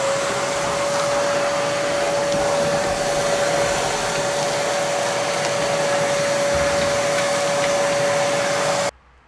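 Vacuum cleaner running: its motor whine climbs to a steady pitch right at the start, holds steady over a loud rushing of air, and cuts off suddenly near the end as it is switched off.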